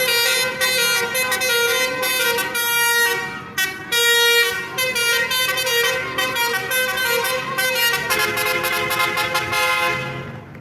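Basuri telolet horn on a pickup truck, its roof-mounted trumpets sounding several notes at once and switching from note to note in a quick tune. It fades out just before the end.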